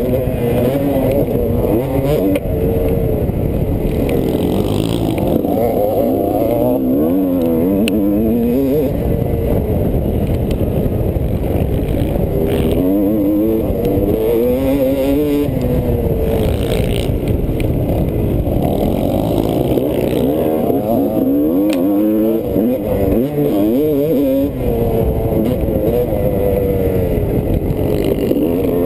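Motocross bike engine heard from on the bike, revving up and falling back again and again as the rider accelerates, shifts and backs off around the track.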